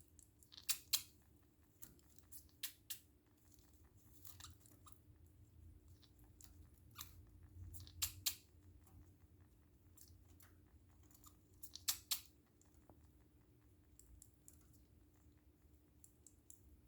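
Parakeet coughing: short, sharp click-like coughs, several coming in quick pairs, with pauses of a second or more between them.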